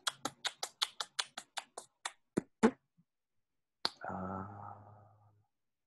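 A quick, even run of sharp clicks, about five a second, ending on two louder ones about two and a half seconds in. Then comes one more click and a short hummed "hmm" from someone thinking.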